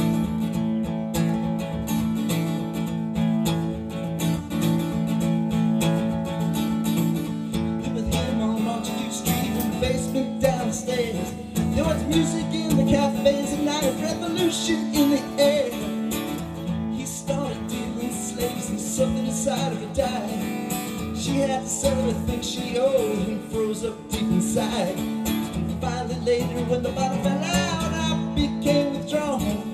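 Acoustic guitar strummed in a steady chord pattern through an instrumental break, with a wavering higher melody line over it from about eight seconds in.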